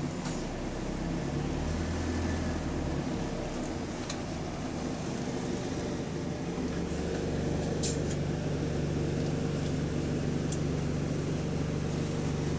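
A bus's engine and electric cooling fan running, heard inside the passenger cabin as a steady drone with a few sharp rattling clicks, the loudest about eight seconds in, from a part vibrating with the engine.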